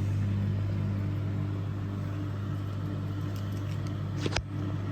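1980s Vulcan Dishlex Mk8 dishwasher running in its normal wash cycle: the wash motor's steady low hum. There is a single sharp click a little over four seconds in.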